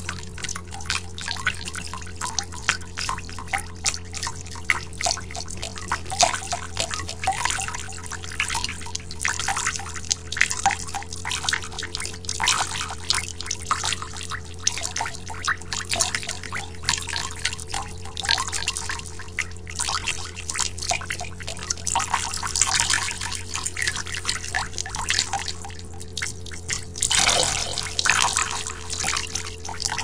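Water splashing and dripping: a dense run of small drops hitting a water surface, many each second, with a longer, louder splash near the end.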